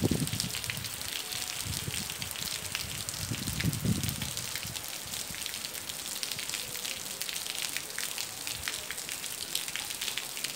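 Steady rain falling on a wet cobblestone street: a dense, even patter of many small drops. A brief low rumble comes about four seconds in.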